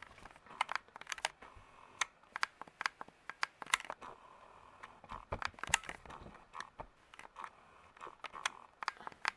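A series of irregular sharp clicks and crackles, a dozen or more, some with a brief ring, like handling noise.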